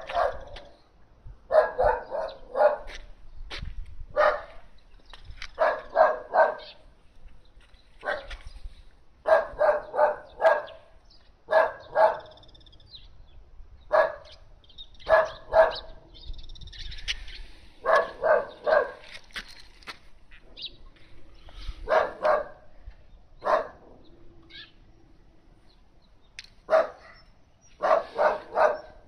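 A dog barking in quick runs of two to five barks, repeating every second or two.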